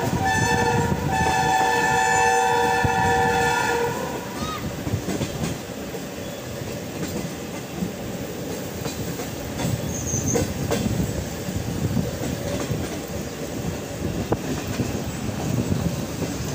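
Diesel locomotive horn sounding a chord of several notes: the end of a short blast, then a longer blast of about three seconds, over the train's running rumble. Once the horn stops, the train keeps running with a steady rumble, wheel clatter on the rails and occasional knocks.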